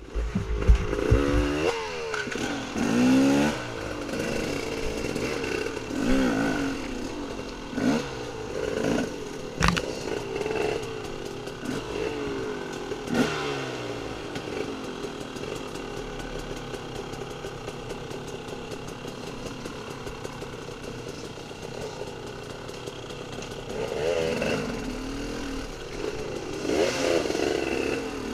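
Off-road dirt bike engine being ridden along a trail, revving up and down again and again, its pitch rising and falling every second or two. A few heavy knocks come in the first second.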